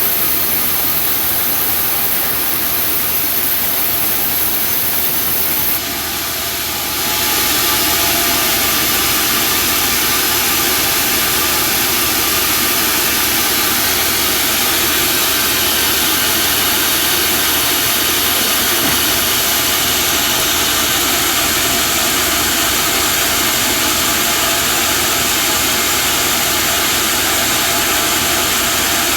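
Homemade band sawmill running with a steady, loud machine noise. The noise drops slightly about six seconds in, then rises a second later and holds.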